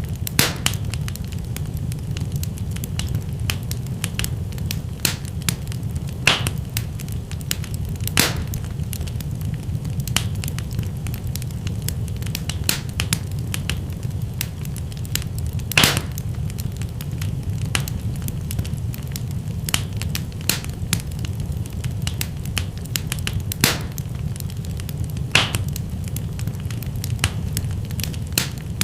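Fire burning in a fireplace: a steady low rumble of flames under constant irregular crackling, with a louder sharp pop every few seconds.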